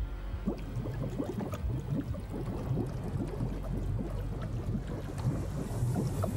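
Water bubbling and splashing around a car sinking: a dense run of small, irregular splashes over a low rumble.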